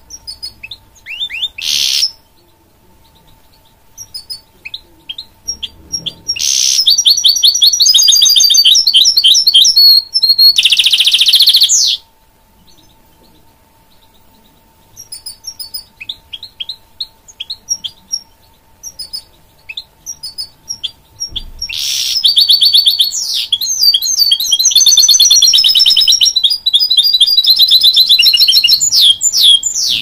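Goldfinch mule (a goldfinch–canary hybrid) singing: scattered twittering chirps between two long, loud, fast warbling song phrases, the first ending in a buzzing roll, the second starting a little past the middle.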